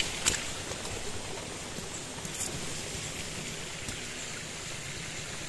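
Steady noise of running water, with a few faint ticks.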